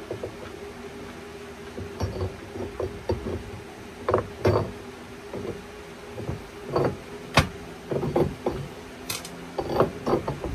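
Irregular knocks and clicks as a lift-kit strut spacer is turned and pushed against the top of a strut assembly, its studs tapping against the spacer while they are lined up with the holes. A steady low hum runs underneath.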